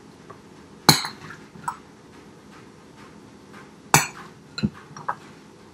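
A spoon clinking against a glass mixing bowl and a muffin tin while scooping filling: two sharp clinks, about a second in and about four seconds in, each followed by a few lighter taps.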